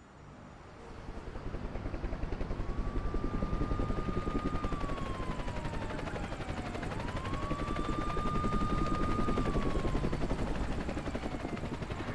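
A helicopter's rotor chop, fading in over the first couple of seconds, with a siren wailing over it: it rises, holds, then falls, repeating about every five and a half seconds.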